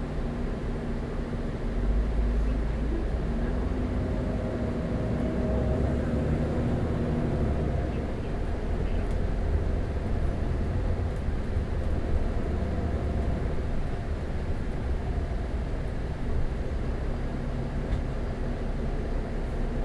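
A double-decker bus's diesel engine running on the road, heard from on board. It pulls harder and louder from about two seconds in, its pitch rising for a few seconds before settling into a steady drone.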